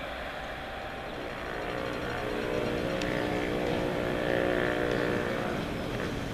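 Class 142 Pacer diesel multiple unit approaching, its underfloor diesel engine giving a steady hum that grows louder from about a second and a half in, then eases off near the end.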